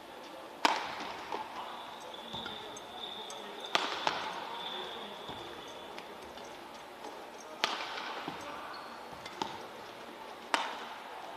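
Badminton rackets striking the shuttlecock in a singles rally: a series of sharp smacks at irregular intervals, each ringing briefly in the hall.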